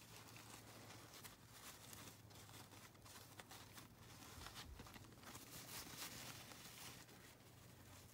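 Near silence: faint, irregular rustling of doll clothing fabric being handled and tucked, over a low steady hum.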